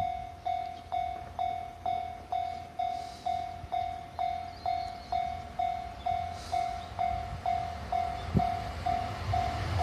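Japanese railway level-crossing warning bell ringing, a single pitched ding repeated about twice a second, each stroke fading before the next. A low rumble runs underneath and grows near the end.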